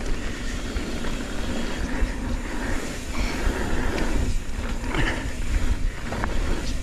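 Mountain bike riding fast down a dirt trail: a steady low rumble and noisy rush from the ride, with a few sharp knocks of the bike over the trail.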